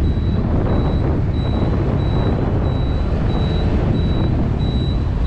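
Motorcycle engine running and road and wind rumble while riding at about 40 to 50 km/h, with a high electronic beep repeating about twice a second.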